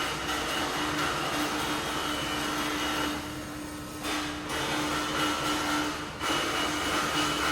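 Construction-site machinery running steadily with a constant whine, easing off briefly about three seconds in and again near six seconds.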